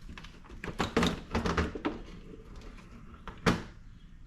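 A truck's headlight assembly being worked loose and pulled out of the front end: a run of short knocks and clicks, then one sharp, loud clack about three and a half seconds in.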